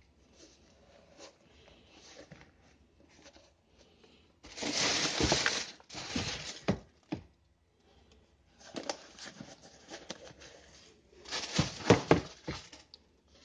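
White tissue wrapping paper rustling and crinkling as it is handled, in three spells of loud crackling with quieter handling between.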